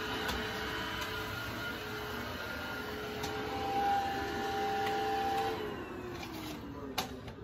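Cordless stick vacuum cleaner running steadily with a whine, then its motor winding down near the end, the pitch falling away. One sharp click about seven seconds in.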